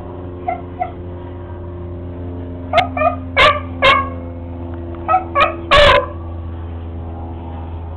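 Beagle barking at a lizard in short, high, yelping barks, about nine in three bursts, the longest and loudest near six seconds in.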